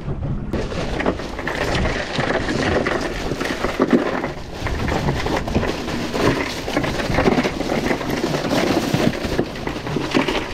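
Crushed ice being shaken out of a plastic bag onto fish in a cooler: a dense rattle and crunch of ice with crinkling plastic, starting about half a second in.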